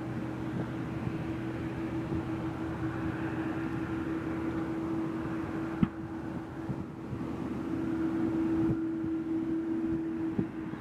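Boeing 787-9 Dreamliner's jet engines running at a steady low power setting, a constant hum over a rushing noise that swells slightly near the end. There is one sharp click about six seconds in.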